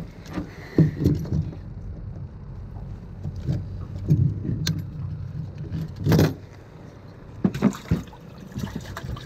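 Handling noise as a fish is carried to a boat's livewell: rustling of clothing against the microphone with irregular knocks and clunks on the boat deck and the livewell's plastic lid, several of them sharp.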